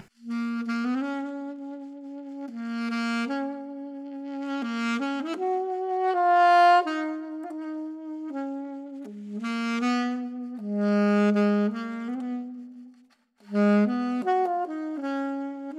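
Eastman alto saxophone playing a slow solo melody of long held notes, with a short break about thirteen seconds in.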